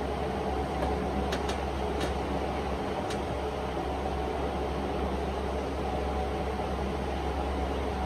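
Steady mechanical hum with a few faint ticks between about one and three seconds in.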